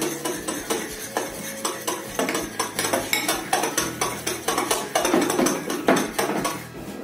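A spoon stirring thick slime in a glass bowl, clinking and scraping against the glass in quick, irregular strokes.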